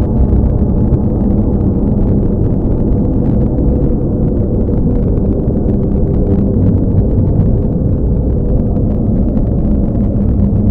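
Loud, steady low rumble with faint humming tones in it.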